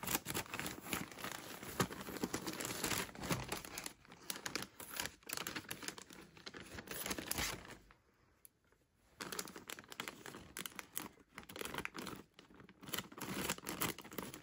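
Plastic poly mailer bag crinkling and tearing as it is cut open with scissors and pulled apart by hand, with a short pause about eight seconds in.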